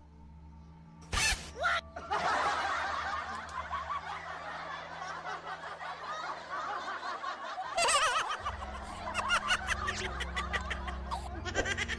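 People laughing over a steady background music bed, with two short sharp sounds about a second in and the laughter breaking into quick repeated bursts in the second half.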